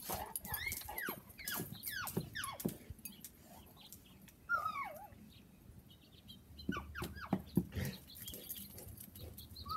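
Short, high dog-like whines and yips, each sliding down in pitch, coming in quick clusters with pauses between.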